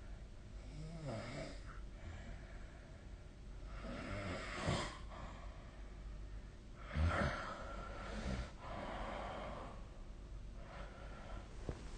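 A sleeping person snoring: a rough, noisy breath every two to three seconds, loudest around the middle.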